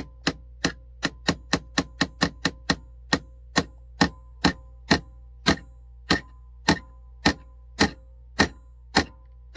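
Hammer driving a nail into the wooden back of a birdhouse: a steady run of strikes, quick for the first few seconds, then slowing to about two a second, each with a short metallic ring.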